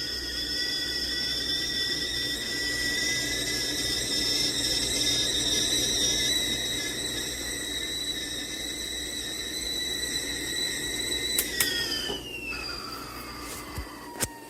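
Mr. Coffee Flintshire stainless steel tea kettle whistling at the boil, several high tones sounding together. About eleven seconds in there is a click, and the whistle slides down in pitch and fades, with a couple of sharp knocks near the end.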